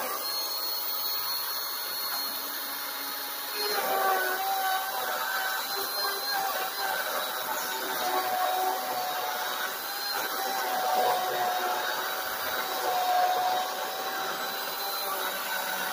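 Kobalt battery chainsaw's electric motor running with a steady whine, its pitch wavering slightly and dropping a little about four seconds in.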